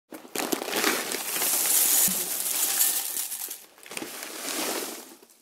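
Sound effect of a mass of dried beans pouring and rattling, a dense clatter of small hard pieces. It comes in two bursts: a long one, then a brief break and a shorter one that fades out.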